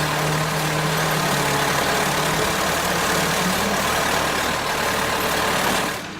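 Chainsaw engine running steadily at high speed with a dense, noisy rasp; its pitch sags briefly about three and a half seconds in, and the sound drops away just before the end.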